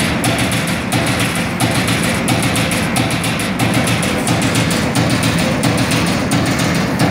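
Rapid, irregular knocks from a servo CNC turret punch press working a steel sheet, heard over loud music with a drum beat and hall noise.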